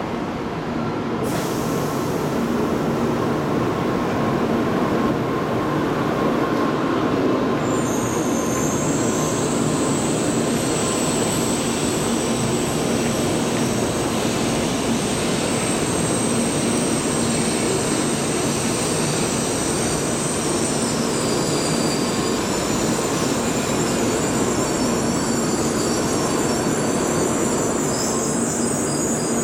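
Tokaido Shinkansen N700A train running alongside a station platform and slowing, a steady loud rush of wheels and air. A thin high-pitched squeal sets in about eight seconds in and holds until near the end.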